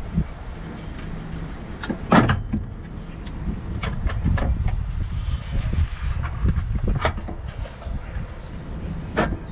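Metal jacking rail knocking and scraping against a car's underbody as it is worked into place by hand, with a few sharp clacks, the loudest about two seconds in and another near the end, over a steady low rumble.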